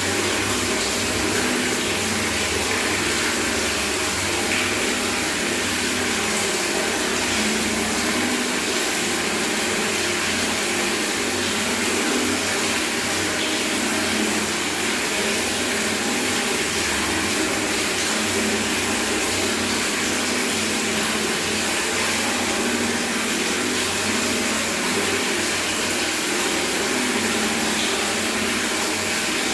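Tap water running steadily into a bucket in a bathroom, a continuous splashing rush with no let-up.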